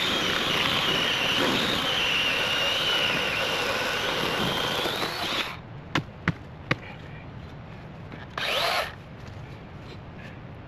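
Battery-powered electric chainsaw cutting a fallen log for about five seconds, its whine wavering under load. It cuts off, three sharp knocks follow, then a brief second burst of the saw.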